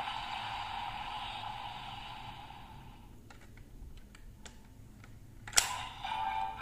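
DX Magnum Shooter 40X toy gun's electronic blast sound effect playing from its speaker and tailing off over the first three seconds. Light plastic clicks follow as the barrel is handled, then a sharp plastic snap about five and a half seconds in as it folds into handgun mode, and the toy's electronic sound starts again right after.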